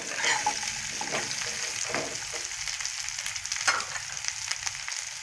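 Chopped vegetables sizzling in hot oil in a cooking pan, stirred with a spoon that scrapes the pan a few times.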